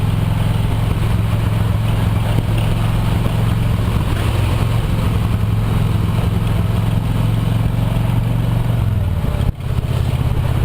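An engine running steadily with a constant low hum over a noisy rush, briefly dipping about nine and a half seconds in.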